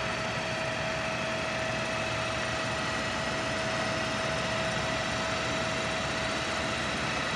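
Cugir FU-36 universal milling machine's knee driving downward in rapid traverse: a steady mechanical whir from the feed drive with a constant whine.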